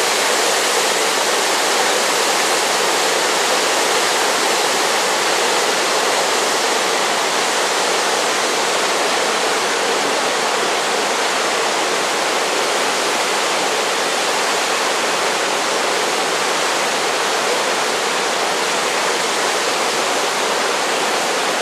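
Niagara Falls: a steady, unbroken rush of falling water, heavy in the hiss and light in the bass.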